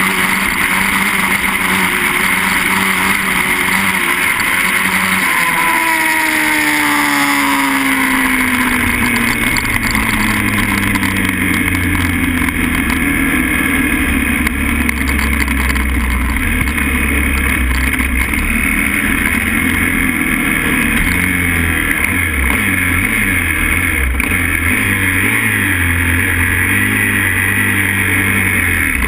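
125cc grass-track racing motorcycle engine running hard at race speed, heard close up from an onboard camera. Its note falls steadily from about five to nine seconds in, then it runs on loudly with a deep low drone.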